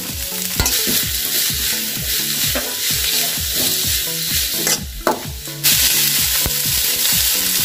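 Shredded cabbage and onions sizzling in a lightweight kadhai over a high gas flame, with a metal spatula stirring and scraping them against the pan. The sizzle dips out briefly a little past the middle.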